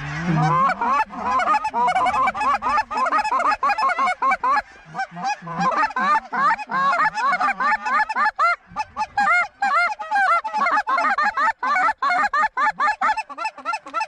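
A flock of geese honking, many short calls overlapping in a dense, continuous chorus.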